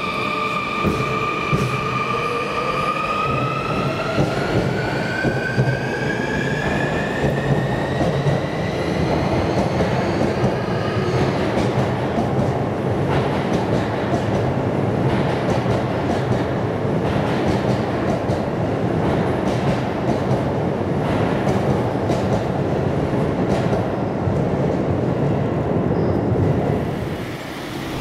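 Sotetsu 20000 series electric train accelerating: the whine of its hybrid SiC VVVF inverter and traction motors rises steadily in pitch over the first ten seconds or so. It then fades into running noise, with wheels clacking over rail joints.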